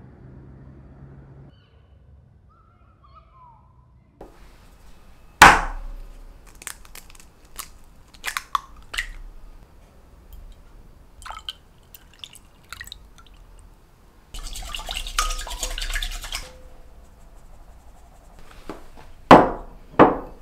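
Glassware and utensil sounds: a sharp clink, then scattered small clicks and taps, and a couple of seconds of liquid pouring into a glass mixing bowl. Near the end come two loud knocks as a glass Pyrex measuring cup is set down on a wooden table.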